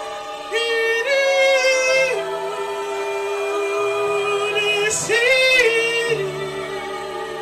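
Woman singing long, wordless held notes with vibrato over sustained accompanying chords in a slow worship song.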